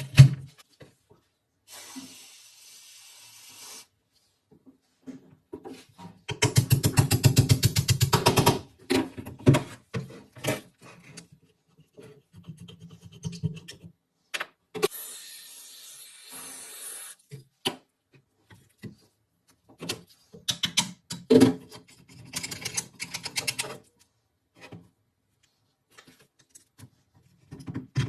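Hand tools working on old rifle parts: a fast run of scraping or filing strokes, two spells of steady hiss, and scattered clicks and knocks of metal parts being handled.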